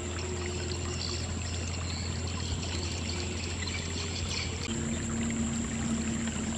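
Shallow muddy water trickling and splashing as hands smooth a wet mud wall at its edge, over a steady low hum.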